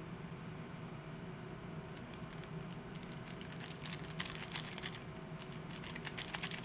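A seasoning sachet crinkling and being shaken, dried flakes pattering onto noodles in a frying pan, as a quick run of crisp crackles that starts about two seconds in and grows busier near the end. A steady low hum runs underneath.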